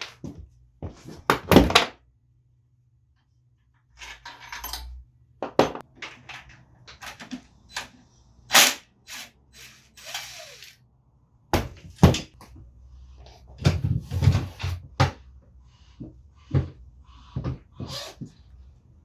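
Irregular knocks, clunks and clicks of tools and metal motorcycle parts being handled during disassembly. The sounds break off completely for about two seconds near the start.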